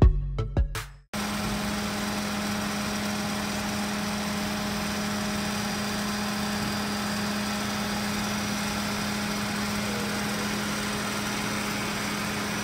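Background music with sharp beats ends about a second in. A steady mechanical hum with one constant low tone follows, the sound of a parked car's engine idling.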